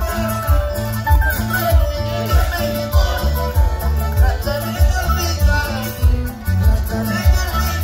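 Loud amplified live huayno band music played through a concert sound system and heard from inside the crowd, with a steady bass beat pulsing under a melody.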